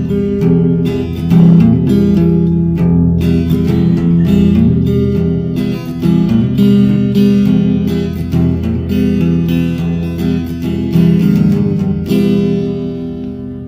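Background music: strummed acoustic guitar playing steady chords, dying away near the end.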